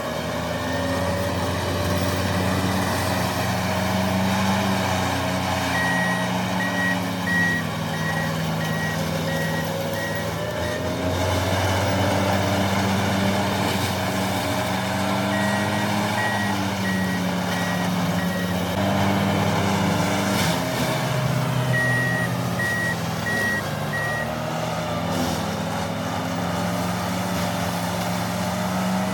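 Wacker Neuson ST45 skid steer's diesel engine working under changing load, its pitch rising and falling, with the machine's backup alarm beeping in three spells as it reverses.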